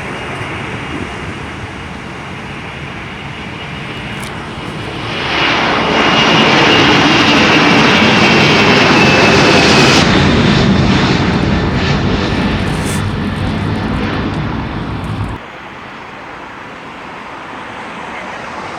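Jet airliner's engines passing close: a steady rushing that swells to a loud peak with a high whine, then drops off abruptly about fifteen seconds in.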